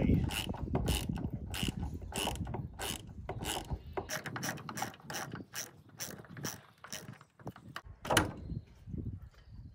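Hand ratchet socket wrench clicking as it turns a wood screw into a timber post, in a run of sharp clicks that come faster in the middle, with one louder knock near the end.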